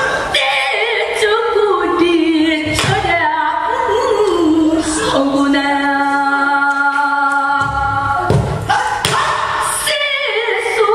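Female pansori singer singing in full voice, with wavering, sliding notes and one long held note in the middle. A few short strokes on the buk barrel drum accompany her.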